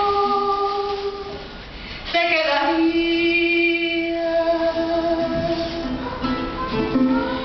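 A woman singing a Venezuelan folk song, holding long notes: one that fades out about a second and a half in, then a longer held note from about two seconds in, followed by more sung phrases.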